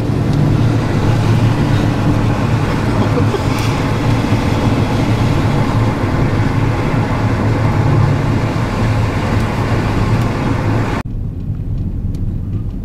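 Steady in-cabin noise of a vehicle driving on a wet highway: engine hum and tyre and road rush. About eleven seconds in it drops suddenly to a quieter, duller cabin noise.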